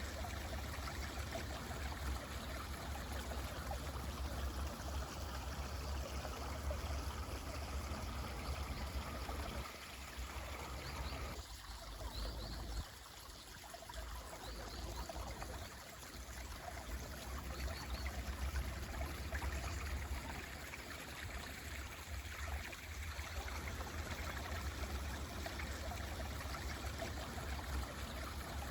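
Mountain stream running steadily, with a few faint short high bird chirps near the middle.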